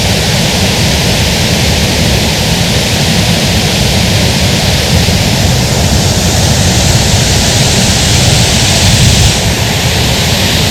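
Eagle Falls waterfall rushing: a loud, steady rush of falling water heard up close.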